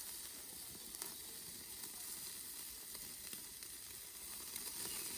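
Food sizzling as it fries in a pan: a steady, fairly quiet hiss with a few faint crackles.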